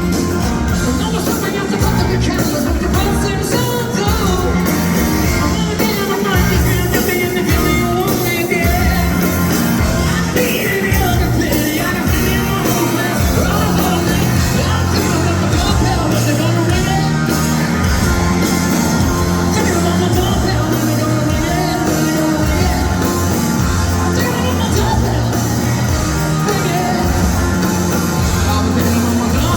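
Live rock band playing loud and steady, with a driving rhythm section, electric instruments and a man singing.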